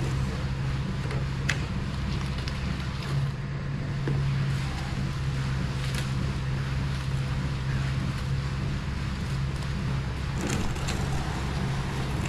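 Heavy concrete truck engine running steadily at a constant speed, a low even drone, with a few sharp clicks over it.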